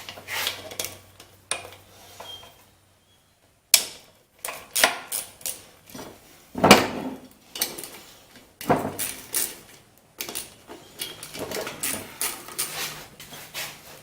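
Metal clinks and knocks at irregular intervals, with a few sharper strikes about 4, 7 and 9 seconds in. These are the sounds of a wrench working the sump cover bolts on a small engine and of the loose bolts being set down on a workbench.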